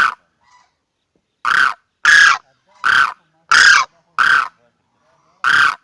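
Crane calls repeated as a hunting lure: seven short, loud trumpeting notes, each under half a second, spaced about a second apart with some coming in quicker pairs.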